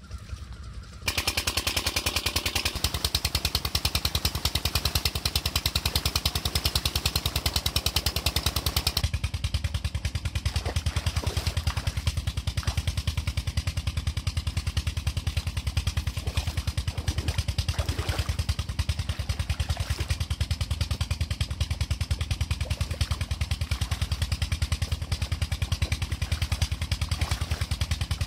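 Chinese 16-horsepower 'Peter' single-cylinder diesel engine running a tube well pump, thumping steadily and rapidly. It grows louder about a second in, with a hiss over it for the next several seconds.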